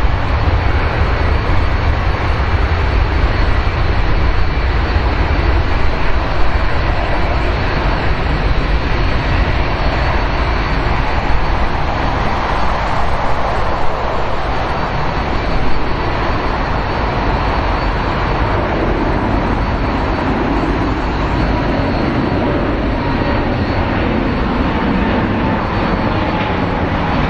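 Boeing 787-9 Dreamliner's twin jet engines at takeoff power: a loud, steady deep rumble with a hiss as the airliner lifts off and climbs away. A faint falling tone comes in near the end.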